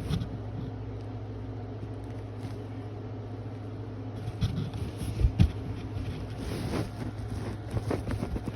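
Steady low hum with a few knocks and rustles of handling from about four seconds in, as the packaging is fetched.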